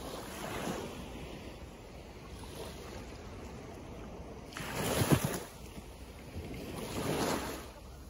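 Small waves washing onto a sandy beach, with a louder wash breaking about five seconds in and another just before the end.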